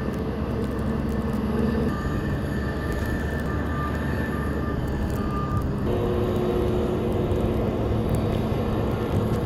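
Airport ground-service vehicle engine running, with a reversing alarm beeping repeatedly at a steady pace and stopping a little past halfway through. After that the engine hum carries on alone with a steadier pitch.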